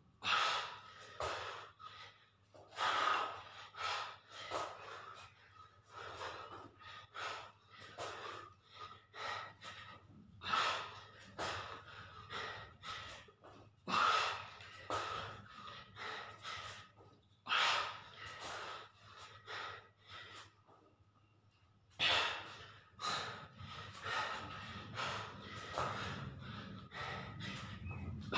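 A man breathing hard and puffing out short, forceful breaths about twice a second while doing push-ups on dumbbells, the sound of heavy exertion. The breathing stops for about two seconds late on, then resumes.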